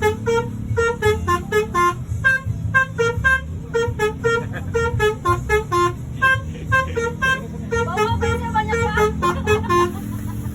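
Basuri 'telolet' multi-tone horn on a Mercedes-Benz OH 1626 NG coach playing a quick melody of short notes, several a second, over the low steady hum of the bus's running engine.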